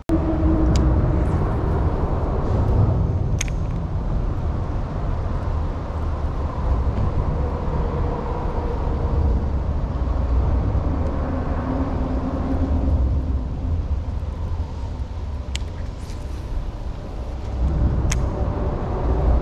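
Road traffic crossing an elevated highway bridge, heard from beneath the deck: a steady low rumble with the drone of passing vehicles, and a few sharp clicks.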